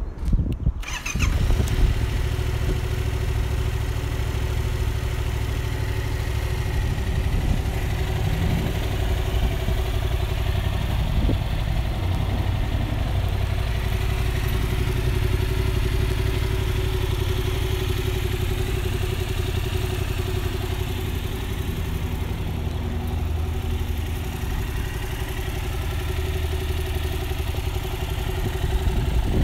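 2019 Yamaha MT-07's parallel-twin engine starting in the first second, then idling steadily.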